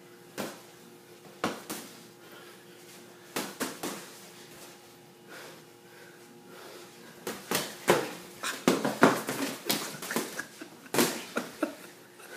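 Padded boxing-glove punches landing during sparring: a few scattered thuds, then a rapid flurry of blows from about seven seconds in.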